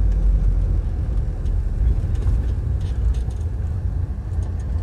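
Low, steady rumble of a car driving, with road and wind noise.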